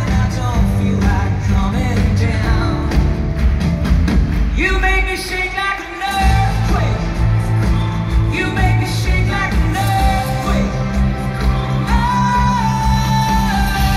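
Live pop-rock band in full swing, with drums, bass, guitars and keyboards under a male lead vocal. About five seconds in, the drums and bass drop out for a moment under a sung line, then the full band comes back in.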